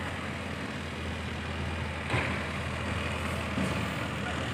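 A boat engine running steadily with a low drone, with a brief knock about two seconds in.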